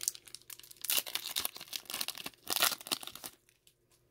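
Foil wrapper of a Pokémon Evolutions booster pack being torn open and crinkled by hand, a run of crackly rips that is loudest about two and a half seconds in and dies away just after three seconds.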